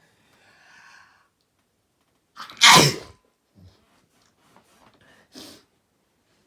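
A single loud sneeze about two and a half seconds in, after a faint drawn-in breath. A short, fainter sound follows about two seconds later.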